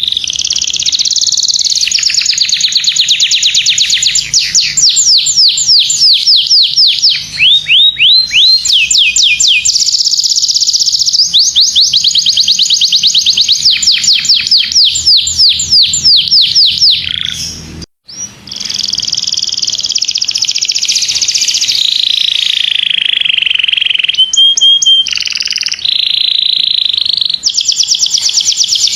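Domestic canary singing a long, loud song of fast trills and runs of rapidly repeated high notes, with a brief break about eighteen seconds in.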